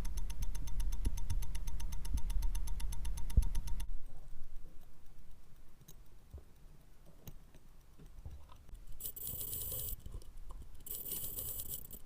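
Watchmaker's bench work: a small motorised tool runs steadily for about four seconds and stops. Light clicks and taps of small metal tools and watch parts follow, then two short bursts of hiss near the end.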